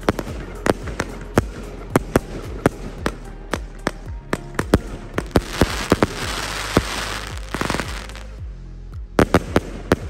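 A 42-shot fireworks cake firing a rapid series of shots and aerial bursts. Around the middle the shots come faster and crackle, then there is a short lull and a last quick volley of several bangs near the end.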